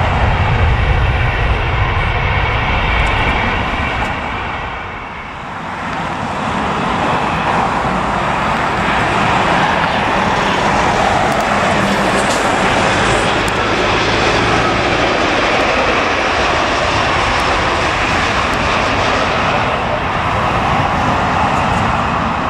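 Airliner engine noise from passing aircraft. A loud low rumble fades to a dip about five seconds in, then a broad engine noise builds and holds steady.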